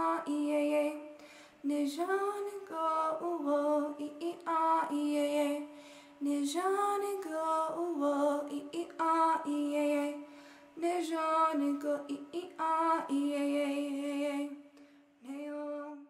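A female voice singing a slow song alone, in held phrases with short pauses between them.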